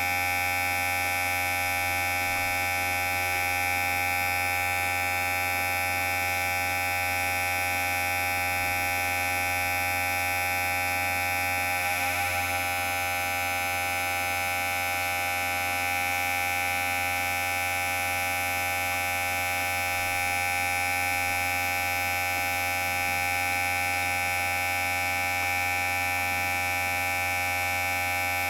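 Electric hair clipper running with a steady buzz, wavering briefly about twelve seconds in.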